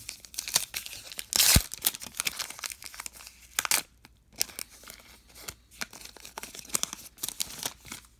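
A foil trading-card pack wrapper (Topps Heritage baseball) being torn open by hand and crinkling. There are two loud rips, about a second and a half in and again near the middle, with rustling and crinkling of the wrapper between and after them.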